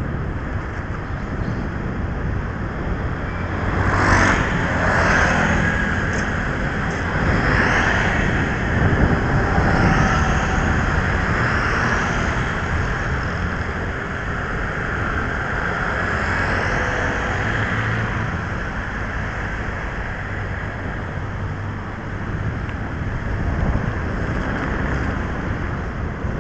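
Street traffic and road noise heard from a moving rider, with wind rushing over the microphone. Passing vehicles swell louder between about 4 and 12 seconds in.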